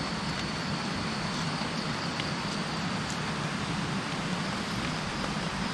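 Steady forest ambience: an even rushing hiss with a constant thin high-pitched insect drone over it, and a few faint ticks.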